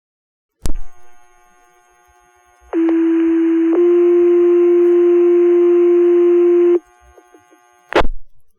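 Two-tone sequential pager alert on a fire dispatch radio channel: a steady tone for about a second, then a slightly higher tone held for about three seconds, over radio hiss, signalling a page to the fire station. Sharp radio squelch clicks come before the tones and twice near the end.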